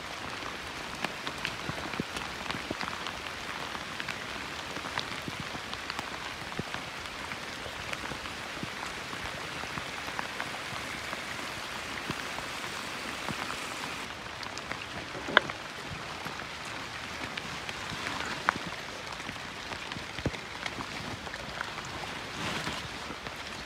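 Steady rain falling: an even hiss of drops, dotted with many small ticks and a few louder taps, the sharpest about fifteen seconds in.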